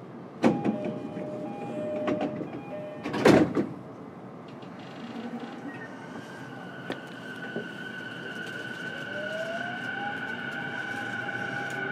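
E233-series electric train at a station stop: a sharp clunk, then a repeating two-note door chime, and the doors shut with a heavy thud about three seconds in. The train then pulls away, its VVVF inverter and traction motors starting a steady whine with a tone that rises as it gathers speed.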